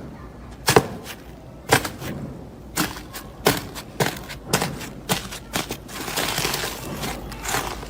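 Slime being pressed and poked, giving sharp sticky pops and clicks about once a second, then a longer crackling squish near the end.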